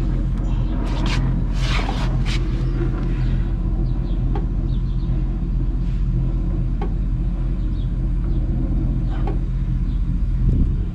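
Brazing torch flame burning with a steady low rumble while a copper refrigerant pipe is brazed onto an air-conditioner compressor; a few short clicks and scrapes between one and two and a half seconds in.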